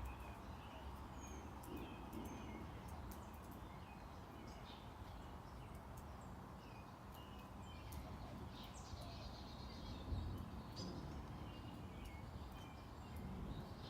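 Backyard ambience: birds chirping and calling on and off, many short, high chirps, over a faint low background rumble.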